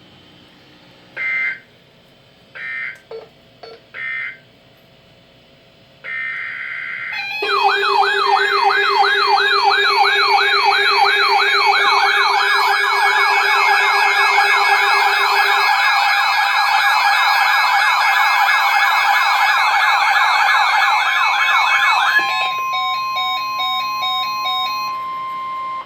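Emergency alert signal tones between two broadcast weather warnings. First come a few short, screechy data bursts. From about 7 s in, a loud electronic alarm of layered tones warbles rapidly up and down over a steady lower tone, like a siren. It stops about 22 s in and gives way to a single steady tone with beeping.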